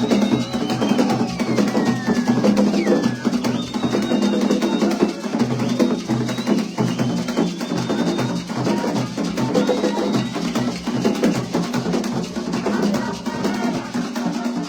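Drumming with a steady beat, with high gliding tones over it.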